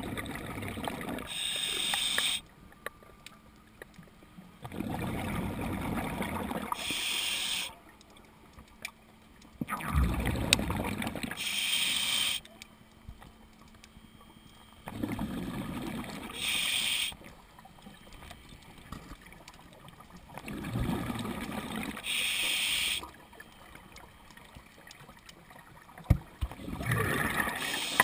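Scuba diver breathing through an open-circuit regulator underwater. Each breath is a bubbly rush of exhaled air followed by a short hiss of inhalation through the demand valve, repeating about every five seconds.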